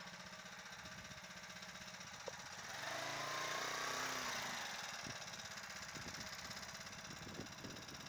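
Motorized bicycle's small engine idling with a steady, even beat, growing louder for a couple of seconds about three seconds in.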